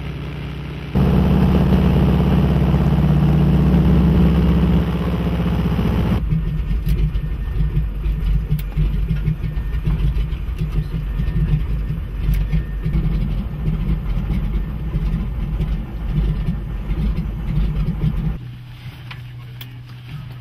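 Float plane's piston engine heard from inside the cabin: a steady drone that turns louder and fuller about a second in, then a rougher, uneven low rumble on the water from about six seconds in, dropping to a quieter steady hum near the end.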